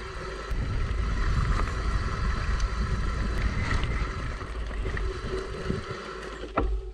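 Bicycle rolling down a rough dirt track: tyre and frame rumble mixed with wind buffeting the microphone.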